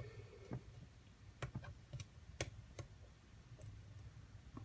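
Faint, scattered clicks, about six of them, of a hook pick working the pin stacks of an ABUS padlock under tension while the lock sits in a deep false set.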